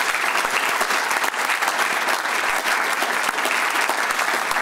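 Audience applauding, a steady round of many hands clapping.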